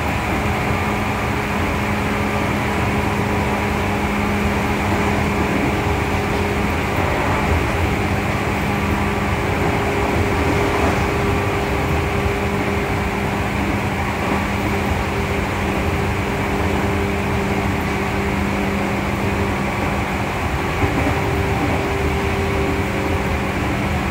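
Running noise heard from inside the motor car of a Seibu 2000 series field-chopper-controlled electric train moving at a steady pace: an even rumble of wheels on rail, with a steady hum.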